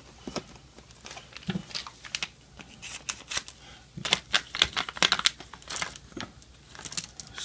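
Foil blind bag of LEGO collectible minifigures crinkling and tearing as it is handled and opened by hand, in a run of short, sharp crackles that are busiest in the middle.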